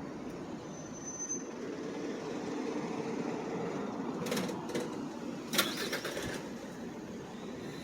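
City street ambience dominated by the steady rumble of passing vehicle traffic, with a few sharp clicks or knocks a little past halfway.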